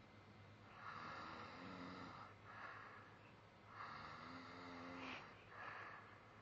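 Quiet snoring: two slow breaths, each a long inward breath with a low rattling buzz, the second louder, then a shorter outward breath.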